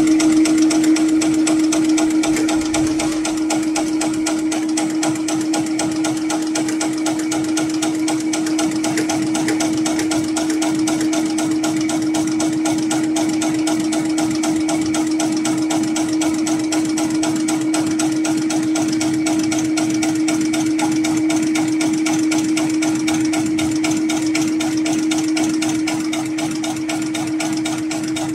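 HighTex 733PLC/R CNC extra-heavy-duty rope sewing machine running continuously, its needle making rapid, even stitches through a thick twisted rope to bar-tack the rope's end, over a steady motor hum. It gets slightly quieter near the end.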